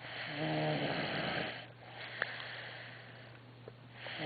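Loud snoring from a sleeper: one long buzzing snore in the first second and a half, a softer breath after it, and the next snore starting near the end.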